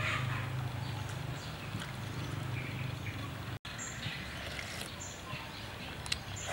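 Birds chirping in several short, high calls over a steady low hum, with a few faint clicks.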